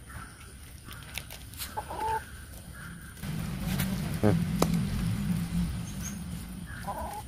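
Chickens clucking: short calls about two seconds in and again near the end, with a louder, choppy low-pitched stretch in between.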